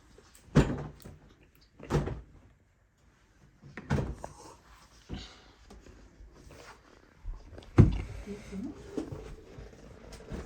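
A series of dull knocks and thuds from objects being handled and put down, about five in all with the loudest near the end, and faint handling noise between them.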